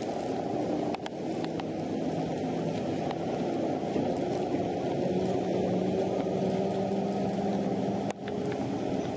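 A heavy tractor unit's diesel engine running at low speed as it hauls a load, a steady low hum whose pitch edges up slightly, under a dense rushing noise of heavy rain and wet tyres.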